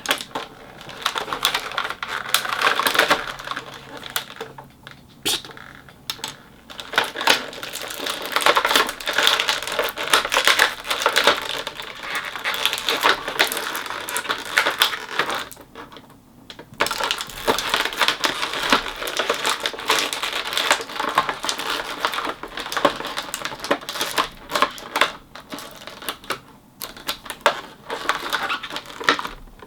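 Small hard plastic parts of an action figure and its accessories being handled: quick irregular clicks, rattles and crinkling, broken by a couple of brief pauses.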